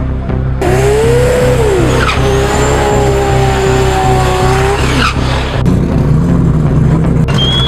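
Drag car engine revving hard during a burnout: the revs climb sharply, then hold high for a few seconds over spinning, squealing tyres before dropping away. A lower engine note and a short high whine follow near the end.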